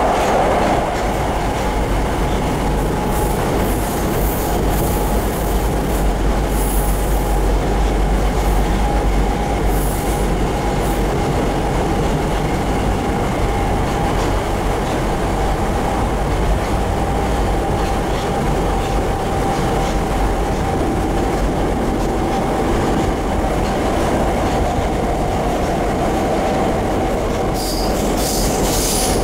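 Running noise of an unrenewed Tokyo Metro 02 series train with Toshiba IGBT-VVVF traction equipment, heard from inside the car. A steady rumble of wheels and motors runs with a steady high tone throughout.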